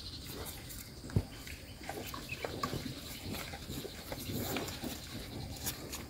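Cattle feeding at close range: small scattered clicks and rustles of mouths and hooves, with one sharper knock about a second in.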